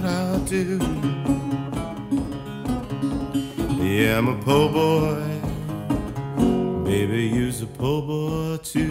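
Delta blues on a metal-bodied resonator guitar, fingerpicked in a steady run of notes, with a man singing over it in long bending lines about four seconds in and again near the end.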